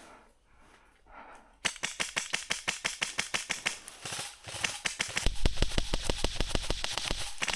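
Airsoft gun firing a long, rapid string of shots, several a second, starting about one and a half seconds in. A low rumble runs under the shots near the end.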